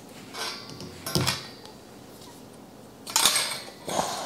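Chrome wire basket shelf clinking and rattling against the steel shelving poles as it is handled, in several short bursts, the loudest about three seconds in.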